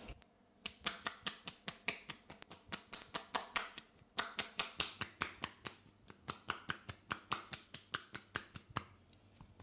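Percussive massage: hands striking the shoulders and upper back in quick sharp slaps, several a second, with a brief pause about four seconds in.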